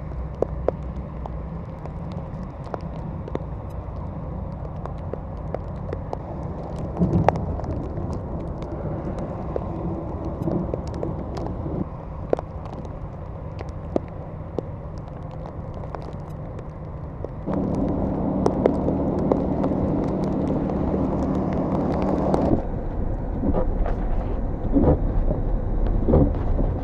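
Motor vehicle engine running steadily, with scattered sharp ticks throughout. The engine gets louder for about five seconds past the middle, then drops back.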